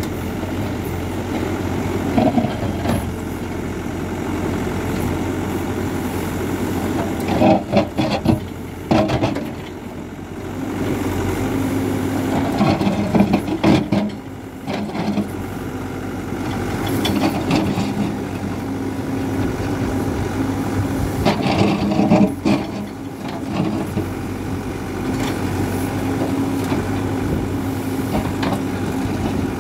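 Hidromek 102B backhoe loader's diesel engine running steadily and revving under load while its backhoe digs in hard ground. There are a few bouts of scraping and clattering from the bucket working the ground.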